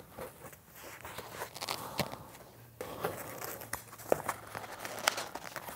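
Foam takeaway clamshell box being handled and its lid lifted: scattered light clicks and creaks with soft rustling.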